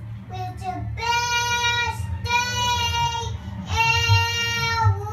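A young boy singing in long, drawn-out notes of a second or more each, held at a steady high pitch with short breaks between them.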